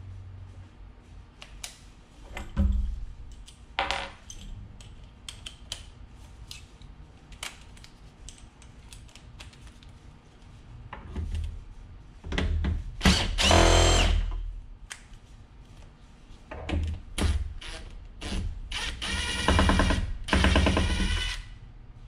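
Cordless drill-driver spinning in short bursts, backing screws out of a flat-panel TV's plastic back cover, with clicks and knocks as the screws and tool are handled. It runs longest twice, a little past halfway and again near the end.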